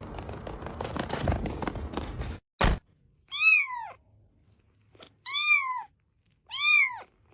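About two seconds of crackling, rustling noise and a short thump, then a domestic cat meowing three times, each meow rising and then falling in pitch.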